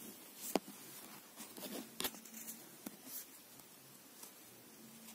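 Knitting needles clicking and scraping together as stitches are worked, with soft rustling of the yarn; a few sharp clicks, the loudest about half a second in and another about two seconds in.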